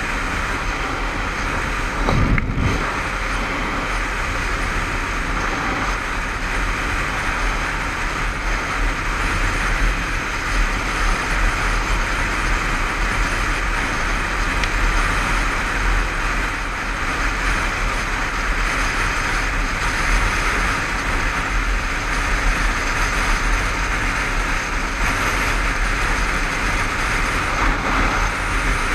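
Steady wind rush and road noise at cruising speed on a Honda CBF500 motorcycle, with wind on a helmet-mounted microphone and the bike's parallel-twin engine running underneath. There is a brief low thump about two seconds in.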